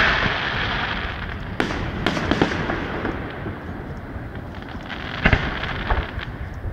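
Fireworks display: dense crackling from bursting shells that fades over the first few seconds, with a few sharp bangs about two seconds in and a louder pair of bangs a little after five seconds.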